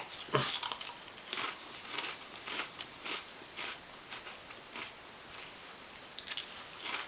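A person biting into a wavy potato chip and chewing it with crisp crunches. A loud bite comes first, then crunches about twice a second that grow fainter, with a couple of louder ones near the end.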